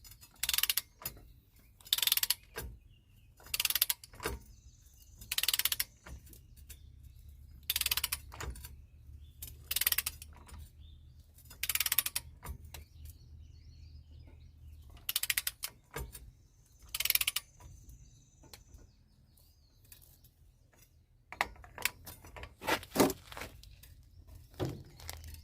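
Ratcheting torque wrench swung in strokes as it tightens a truck's axle nut onto a new hub assembly. Each stroke is a short burst of ratchet clicks, one every couple of seconds, with a quicker run of strokes near the end.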